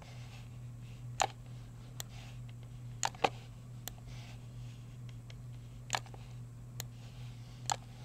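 Computer mouse button clicking about eight times at irregular intervals, sharp single clicks over a steady low hum.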